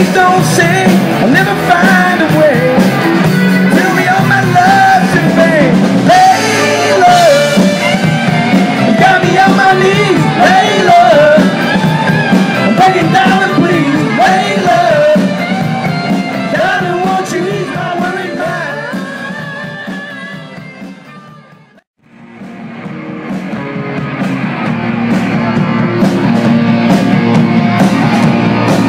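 Live rock cover band playing with a lead singer. About three quarters of the way through, the music fades out to silence, then a different stretch of the band's playing fades back in.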